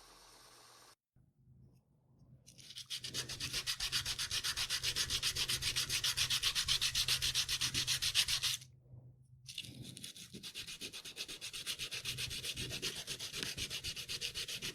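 Wood being sanded by hand with quick back-and-forth strokes, about five a second, in two separate runs.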